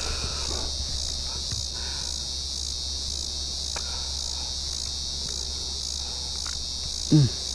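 Steady high-pitched chorus of insects in the background. It is joined by a few faint clicks as the hook is worked free with pliers, and a brief vocal sound near the end.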